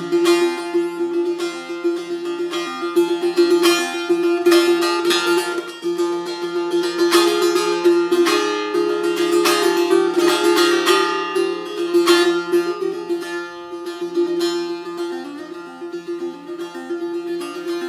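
Bağlama (long-necked saz) played solo: quick runs of plucked notes over a steady drone note from the open strings.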